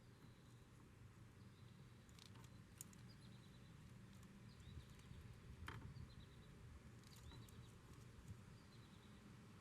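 Near silence: a few faint clicks and taps of a wire terminal being handled at a plastic transmission connector, with faint bird chirps in the background.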